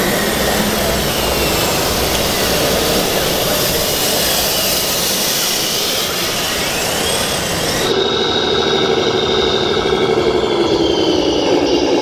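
Radio-controlled model Volvo wheel loader working, its motors whining with pitch sliding up and down over a steady hiss. About eight seconds in it gives way to a steady engine hum from a model Volvo truck, which drops in pitch near the end.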